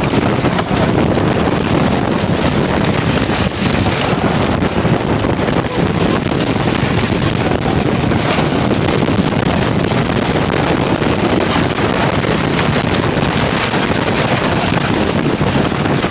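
Wind buffeting the microphone on a moving wooden roller coaster, with the train's steady rumble and rapid rattling clatter on the track.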